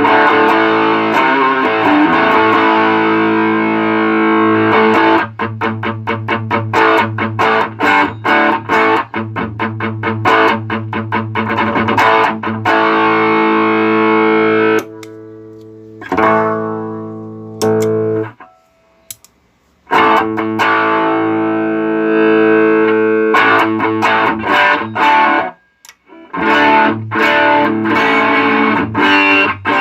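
Electric guitar played through a JHS Double Barrel dual overdrive pedal: distorted chords held and left to ring, then quick chopped strums, with two short breaks, one near the middle and one near the end.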